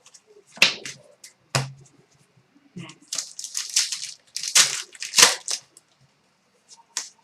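Hockey card pack wrappers crinkling and tearing as cards are handled, in a run of short rips and crackles, loudest a little past halfway.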